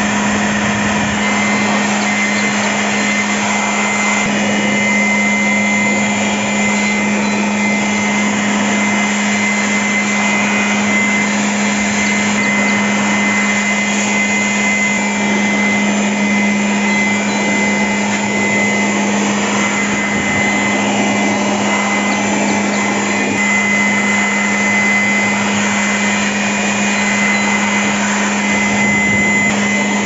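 Handheld electric air blower running steadily, blowing into a freezer to melt and loosen built-up frost: a loud even rush of air over a low motor hum with a thin high whine.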